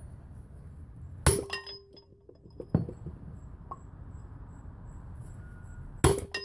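Sharp metal-on-metal clanks, each with a short ring: two loud ones about a second in and near the end, with a lighter knock between. The last is a hammer blow on a steel driver, pressing a wheel stud into a full-floating truck hub and brake drum.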